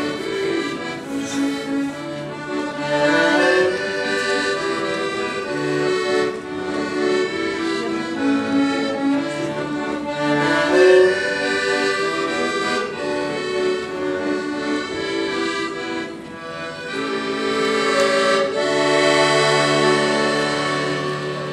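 Piano accordion played solo: a melody over bass notes, closing on long held chords near the end.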